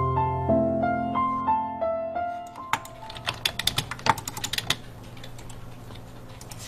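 Slow piano melody whose held notes stop about two and a half seconds in. A quick, irregular run of computer keyboard typing clicks follows for about two seconds.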